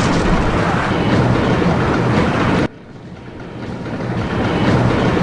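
Roller coaster train running along its track: a steady, loud rumble that cuts off abruptly about two and a half seconds in, then swells back up again.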